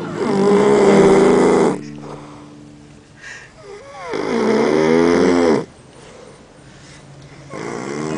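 A man, drunk and deeply asleep, snoring heavily. There are three loud snores, about one every four seconds, each lasting about a second and a half.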